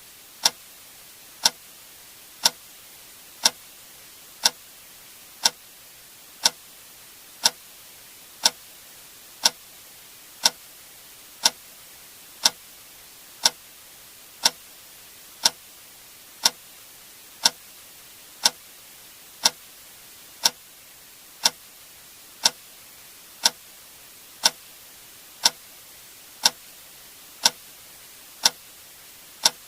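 A sharp click sound effect repeating exactly once per second, evenly spaced like a clock tick, over a faint steady hiss.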